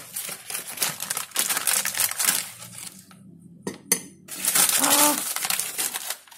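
Metal spoon clinking and scraping against a ceramic mug in rapid strokes, stopping about three seconds in, then a single clink and another run of scraping.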